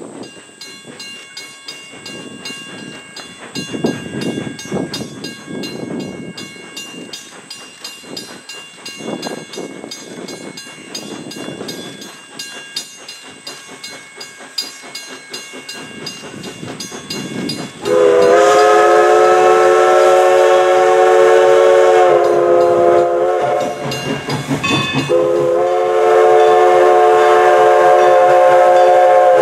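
Steam locomotive No. 11 working toward the listener with a rhythmic exhaust beat. About two-thirds of the way in it sounds its multi-tone steam whistle, much louder than the exhaust: one long blast, a brief break, then another long blast.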